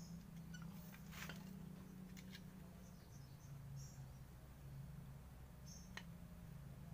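Faint clicks and scrapes of a screwdriver working on an Isuzu Panther's drum-brake shoe and its springs, one about a second in, another about two seconds in and one near the end, over a low steady hum.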